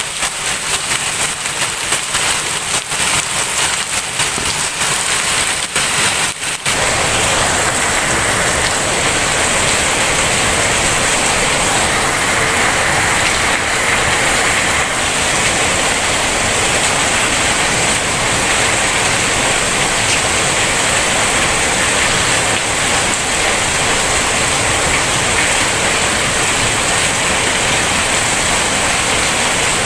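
Heavy rain. For the first several seconds many separate drops are heard hitting a surface, then it changes suddenly into a dense, steady rush.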